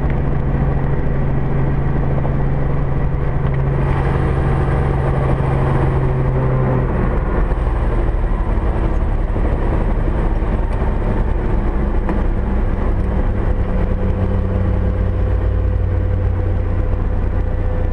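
Light aircraft's piston engine and propeller running steadily at low power. The engine note drops slightly about seven seconds in.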